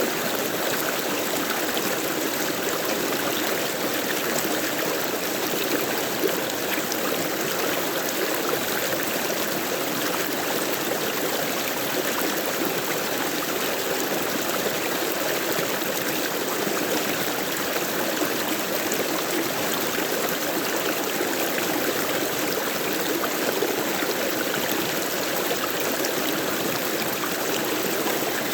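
Flowing water of a stream running over rocks: a steady, even rush with light gurgling.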